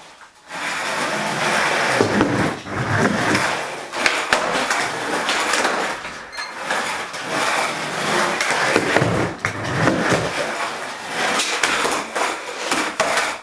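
Skateboard wheels rolling on a concrete garage floor, with repeated sharp clacks of the board hitting the floor as tricks are popped and landed. The sound starts about half a second in and cuts off abruptly at the end.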